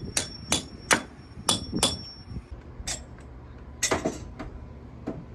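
Hammer blows, a run of sharp strikes with a short metallic ring, about two a second, with a brief pause partway through.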